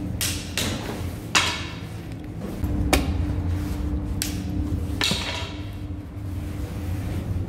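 Metal bread hooks knocking and scraping against the rim and clay wall of a tandoor oven as lavash is worked in and out, about half a dozen knocks with the sharpest one about three seconds in. A steady low rumble runs underneath.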